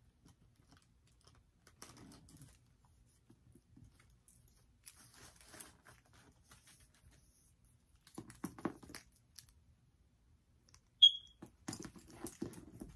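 Rustling and light clicking as a leather shoulder strap with metal clasps is handled, in several short bouts. About eleven seconds in comes one short, sharp, bright clink, the loudest sound.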